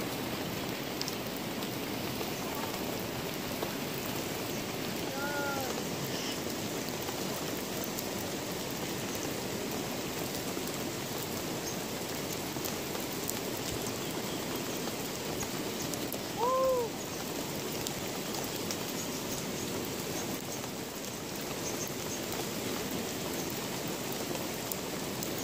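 Steady rushing water noise. Two short calls that rise and fall are heard about five seconds in and again at about seventeen seconds.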